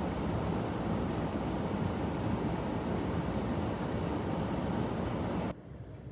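Strong wind buffeting the microphone: a steady, dense rush of noise heaviest in the low end. It drops suddenly to a quieter hiss about five and a half seconds in.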